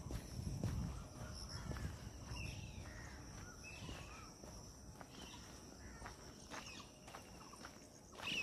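Outdoor woodland ambience: insects keep up a steady high whine while birds give short, gliding chirps through the middle. Footsteps on the path thud in about the first second.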